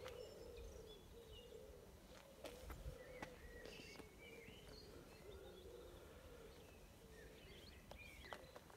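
Quiet outdoor ambience: small birds chirping and tweeting here and there over a faint wavering hum, with a few light clicks.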